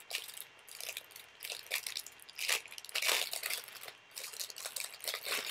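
Plastic packaging crinkling and crackling in irregular bursts as it is handled and opened by hand, loudest about three seconds in.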